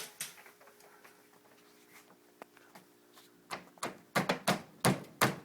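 Hard plastic clicks and knocks from the pieces of a refrigerator door's gasket assembly being snapped and pressed into place. There is one sharp snap at the start, a few faint clicks, then a quick run of about six knocks near the end.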